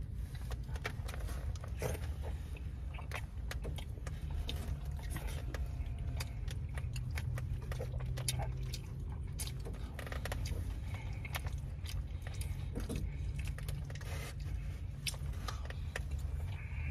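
A person eating takeout inside a car: a plastic spoon clicking and scraping in the container, and chewing. Many short clicks are scattered throughout, over a steady low hum.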